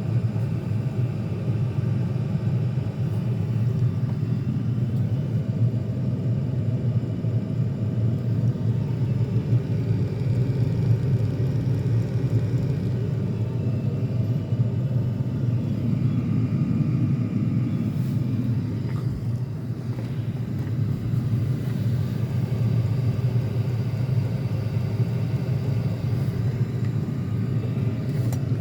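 Wippro all-in-one diesel air heater running, a steady low rumble from its burner and blower.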